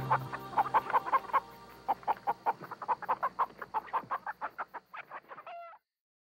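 Chicken clucking in a fast run of short clucks, about four or five a second, growing fainter, ending in one short drawn-out call before it cuts off suddenly.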